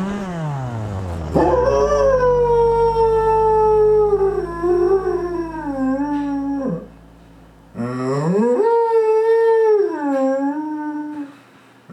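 Dog howling: two long drawn-out howls, each held with a wavering pitch and then sliding down at the end, after a shorter falling howl at the start.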